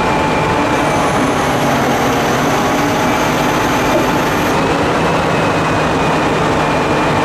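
Heavy machinery running steadily and loudly, with a thin high whine through the first half.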